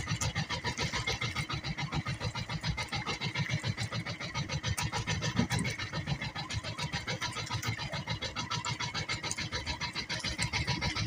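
Outrigger boat's engine running steadily at low speed, an even chugging of about seven beats a second.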